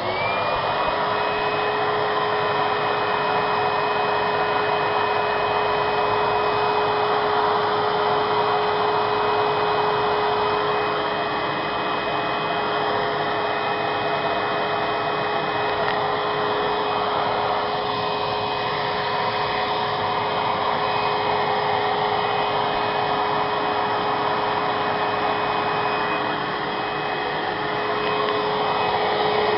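Vacuum cleaner switched on, its motor spinning up with a briefly rising whine and then running steadily with a loud rush of air and a constant high whine.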